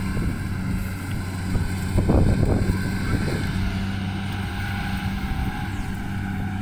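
Rice combine harvester's engine running at a steady pitch, an even low hum. A louder rustling stretch comes about two seconds in.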